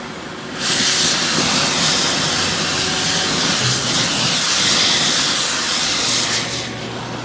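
Oxy-acetylene torch flame hissing with oxygen added. The hiss grows much louder just under a second in and falls back about six seconds later.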